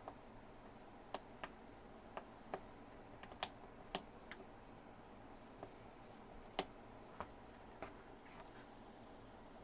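Scattered sharp clicks and small snaps, about a dozen at irregular intervals: an X-Acto craft knife cutting the corners off wooden popsicle sticks.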